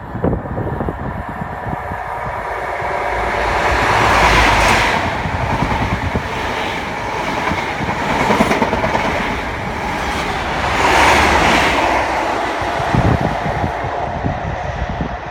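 A Great Western Railway High Speed Train, a diesel InterCity 125 with Class 43 power cars, passes through the station at speed without stopping. Its engines and wheels make a steady rush with clickety-clack over the rail joints, loudest about four seconds in and again around eleven seconds.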